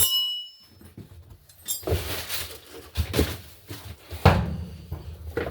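A sharp metallic clank right at the start, ringing briefly as it dies away, followed by a few seconds of irregular clattering and handling of metal tools or parts.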